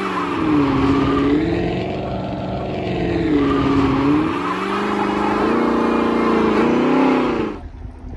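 Chevrolet Camaro engine revving hard through a burnout, loud, its pitch dropping and climbing back up a couple of times as the rear tyres spin. The sound cuts off suddenly about seven and a half seconds in.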